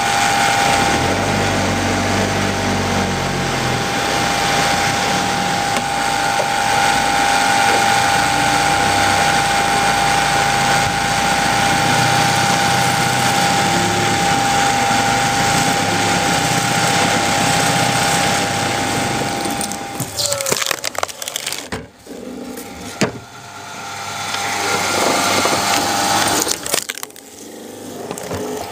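Electric cone log splitter running: the motor's steady whine under the crunching and splintering of wood as the threaded steel cone screws into a log. About twenty seconds in the whine drops away, leaving irregular cracks and knocks of the wood.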